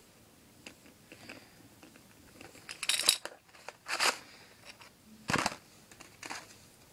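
A few short knocks and rustles from plastic modelling-clay tools being handled on a paper sheet: a plastic rolling pin set down and a plastic mould moved about.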